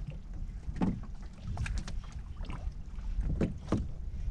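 Small waves slapping against the hull of a drifting inflatable boat in short, irregular splashes, over a low wind rumble on the microphone.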